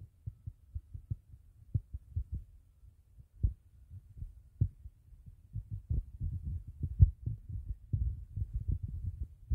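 Irregular muffled low thumps and rumble from a phone being carried by someone walking: handling and footfall noise at the microphone. The thumps are sparse at first and come thicker and louder from about halfway through.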